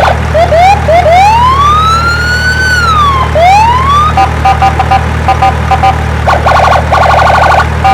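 Electronic toy siren cycling through patterns. First come short rising chirps, then a long rising-and-falling wail, then rapid two-tone beeping and a fast warble near the end. A steady low hum runs under it.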